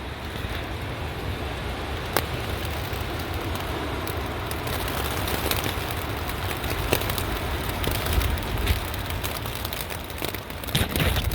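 Storm wind buffeting a staked-out tent, with rain pattering on the fabric, a heavy wind rumble on the microphone and sharp snaps now and then.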